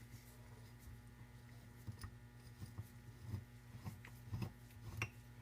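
Faint, scattered metal clicks and taps as a three-jaw puller is fitted onto a stuck engine part, over a steady low hum.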